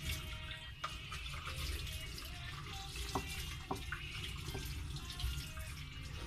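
Banana pancake batter being stirred by hand in a bowl, a wet liquid sound with a couple of light clicks of the utensil against the bowl a little after the middle.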